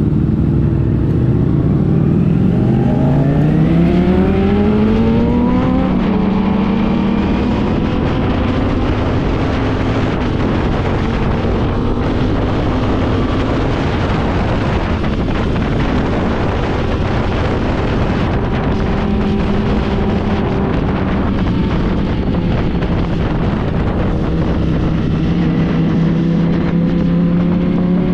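Motorcycle engine accelerating with rising pitch, shifting up about six seconds in, then cruising at a steady speed, and picking up a little again near the end, over a constant rushing noise.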